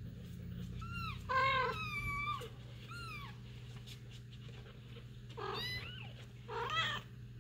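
A cat meowing about five times in short, arching meows. The loudest come about a second and a half in and near the end, over a steady low hum.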